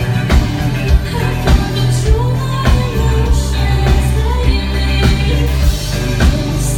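Live indie pop band playing: a woman's lead vocal over electric bass guitar and a steady drum beat.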